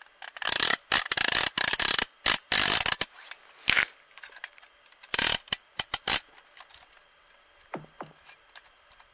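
Small reel of a winter ice-fishing rod being turned by hand, its ratchet clicking in quick rasping runs through the first three seconds and again briefly a couple of seconds later, then only a few faint clicks.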